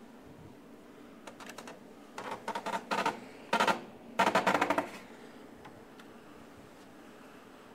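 A door lock and handle being worked as the unit's door is unlocked and opened: several clusters of rapid metallic clicks and rattles, the loudest near the middle.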